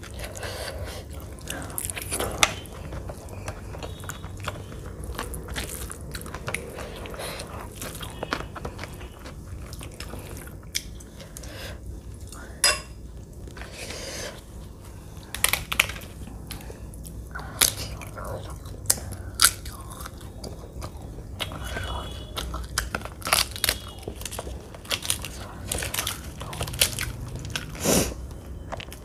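Close-miked eating sounds: chewing and biting with many sharp, crisp crunches, and fingers mixing rice and curry on a plate between mouthfuls.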